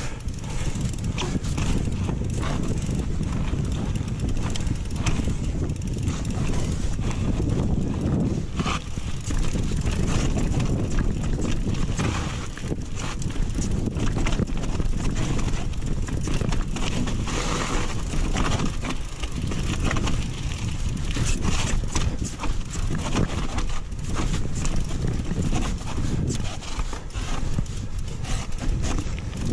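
Mountain bike clattering over a rough, rocky trail: a continuous run of irregular knocks and rattles from the tyres, frame and chain over a steady low rumble.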